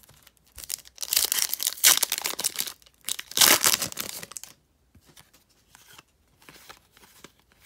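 A Topps trading card pack's crimped wrapper being torn open and crinkled, in two noisy bursts over about three and a half seconds. After that come faint rustles as the cards are handled.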